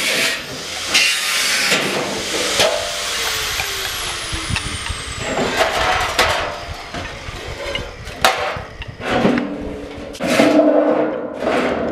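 Angle grinder cutting into a steel 55-gallon drum, then shutting off and winding down with a falling whine a few seconds in. Several sharp metal clanks and short scraping bursts follow.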